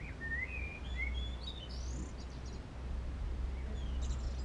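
A songbird singing: a quick run of whistled, gliding notes that climb in pitch over the first two seconds, then a few short high chirps near the end, over a steady low hum.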